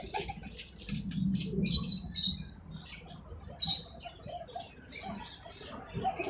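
Pigeons in their nest: a string of short, scratchy high squeaks and rustles, coming irregularly a few times a second.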